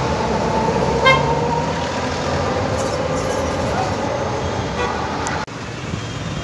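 Busy street traffic running steadily, with a short car horn toot about a second in.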